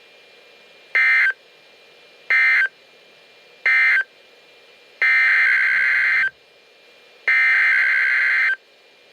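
NOAA Weather Radio SAME data bursts: three short buzzing bursts, the end-of-message code closing the previous warning, then three longer bursts, the header coding the next winter storm warning.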